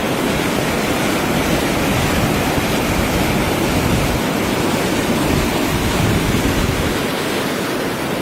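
Rushing floodwater, a steady, loud noise of fast-flowing water.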